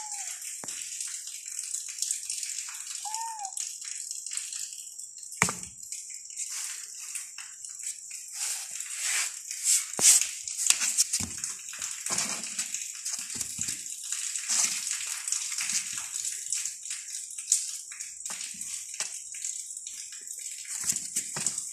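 Kitten giving two short, high mews about three seconds apart, then a long spell of crinkly rustling and scratching of cloth and cardboard as kittens move about in a box, with a few sharp knocks.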